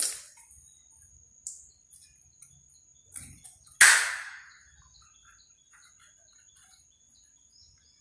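Small birds chirping in the background over a steady high-pitched whine, with a sharp knock about four seconds in, like an object set down on a hard worktop.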